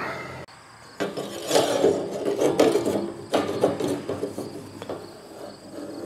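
Hand scraping and rubbing on metal in short, irregular strokes, with a few sharp clicks, as gooey sludge settled out of the diesel fuel is cleaned out.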